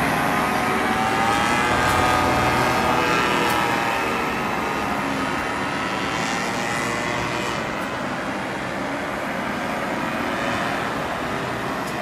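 Engines of several powered paragliders droning overhead, their overlapping pitches sliding slowly up and down as they circle past. The sound eases off a little after about four seconds.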